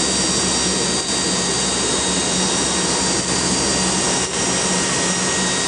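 Lockheed C-130 Hercules turboprop engines running steadily during engine start, a loud even rush with several high turbine whines held on a steady pitch.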